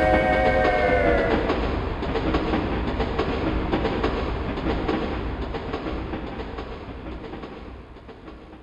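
Synthesized passing-train sound effect from the Roland SC-88 sound source of a TJ Media PRO-3000 karaoke machine. A multi-tone train whistle dips slightly in pitch and cuts off about a second in. The train's rumble then fades steadily away.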